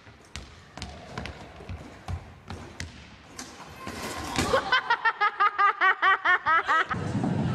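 Scattered knocks and thuds on a gym floor, then a person's rapid, high-pitched laughter, about five short bursts a second for roughly two seconds.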